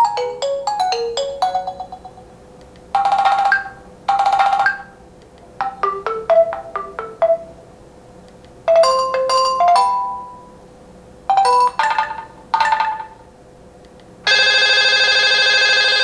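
Nokia 800 Tough phone playing a series of short ringtones and alert tones one after another: quick chime-like note runs, two short buzzy blips, then a steady buzzing tone lasting about two seconds near the end.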